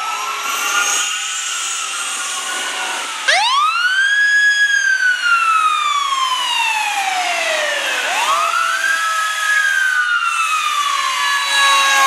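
Fire engine siren wailing. A fainter siren sounds at first, then a loud wail cuts in about three seconds in. Each wail sweeps up quickly and slides slowly back down, three times over.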